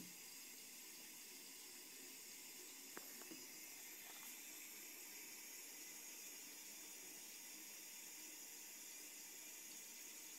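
Faint, steady trickle of a thin stream of tap water falling into a bathroom sink, with a couple of small clicks about three seconds in.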